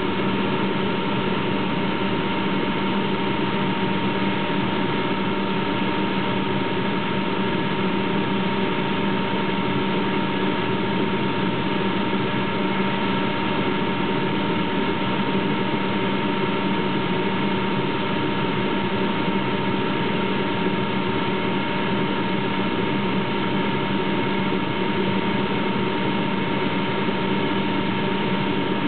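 Atlas Copco ZT 75 oil-free rotary tooth air compressor running steadily on a test run: an even, unchanging machine noise with a low hum and a higher whine held throughout.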